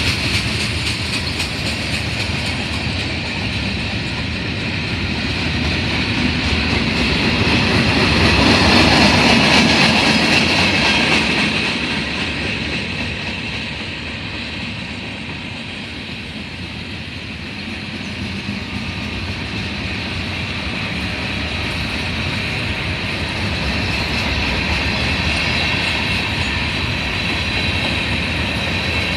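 Railroad cars rolling past on the track in a steady rumble of wheels on rail, with a faint high ringing from the wheels. The sound swells about a third of the way in, eases off, then builds again.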